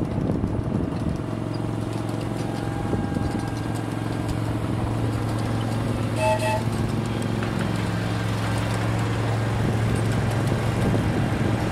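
A small-scale diesel-outline riding locomotive runs with a steady low engine hum as it pulls its cars of riders. About six seconds in its horn gives one short toot.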